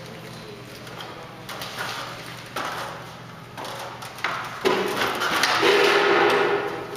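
Masking tape being peeled off fresh paint: a few short ripping pulls, then a longer, louder tearing run over the last two seconds or so.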